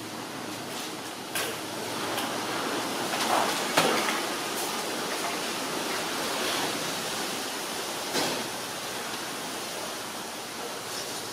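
Steady hiss, with a few sharp knocks about a second and a half, four and eight seconds in; the one near four seconds is the loudest.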